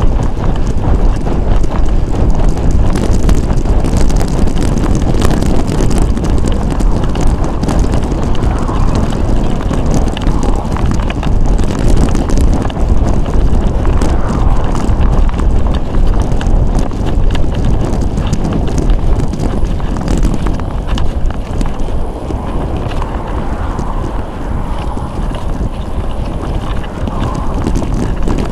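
Wind rushing over a handlebar-mounted camera's microphone on a road bicycle in motion, with tyre and road noise and frequent small clicks throughout.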